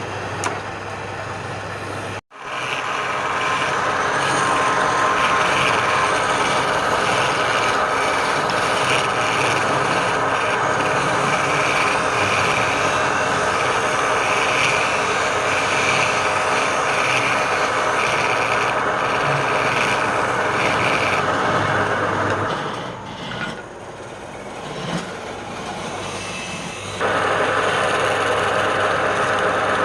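A woodworking power tool running steadily with a constant hum, cutting out for an instant about two seconds in, easing off for a few seconds near the end, then running loud again.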